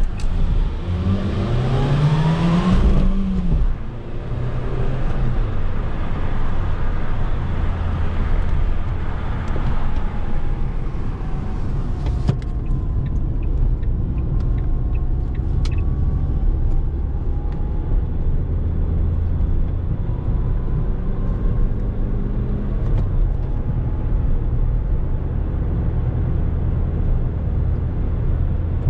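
Ford Fusion 1.4 16V inline-four petrol engine pulling under acceleration, its pitch rising for the first three seconds, a brief drop in level, then running steadily under way with road noise.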